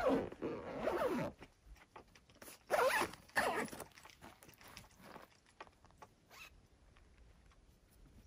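A zipper pulled in two quick runs, one at the start and another about three seconds in, with light rustling of fabric in between and after.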